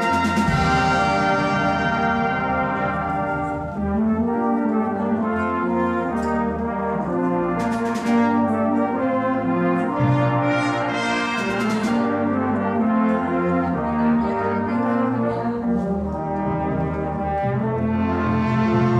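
Full brass band playing live: brass instruments, tubas and trombones among them, in sustained massed chords at a steady loud level, with two bright crashes in the middle.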